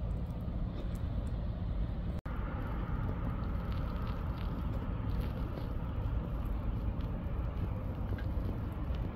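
Steady low rumble of an idling vehicle engine, broken by a sudden brief dropout about two seconds in.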